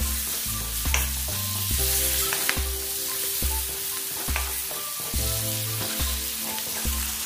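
Spice paste of garlic, shallots, chilli, ginger, galangal, lemongrass and bay leaves sizzling in hot oil in a wok, with a spatula stirring and scraping it and now and then tapping the pan. Background music with a stepping bass line plays underneath.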